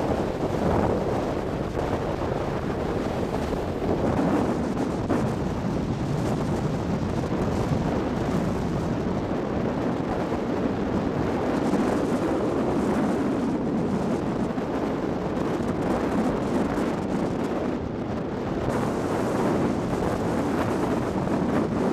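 Steady wind rushing over the microphone of a moving motorboat, mixed with the boat's engine and water noise.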